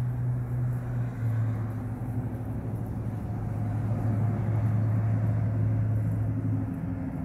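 A steady, low engine hum that drops away near the end.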